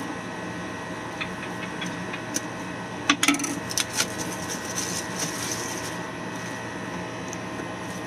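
Plastic wrap on a phone box being pierced and torn open with a pen tip, then the box handled: scattered small clicks, a burst of sharp crackles about three seconds in, then rustling. A steady hum runs underneath.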